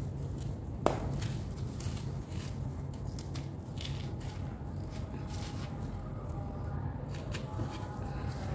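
Hands crumbling and scooping a damp, hardened sand-and-cement mix: gritty crackles as the lumps break and the grit pours, with one sharp crack about a second in. A steady low hum runs underneath.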